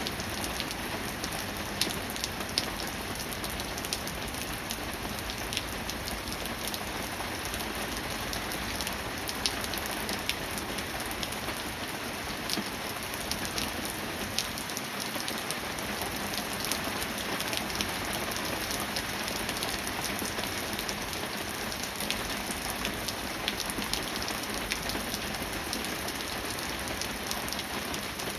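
Steady rain falling, an even hiss of rain with many sharp, scattered drop ticks and patters landing on a surface.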